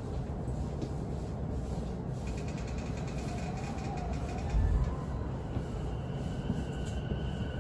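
Running noise inside an electric commuter train under way: a steady rumble of wheels on the rails, with a heavy thud about two-thirds of the way through and a faint high motor whine coming in near the end.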